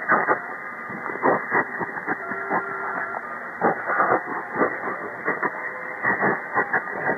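Shortwave receiver (CommRadio CR-1) tuned to 6130 kHz in upper sideband with a narrow 1.8 kHz filter: muffled hiss with frequent static crackles and a few brief faint tones from a weak signal.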